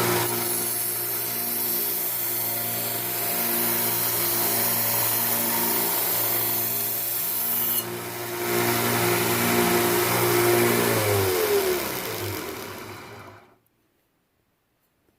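Electric grinder running with steel being ground against it: a steady motor hum under a high grinding hiss, with a short break about 8 s in. Near the end the motor is switched off and winds down, falling in pitch to silence.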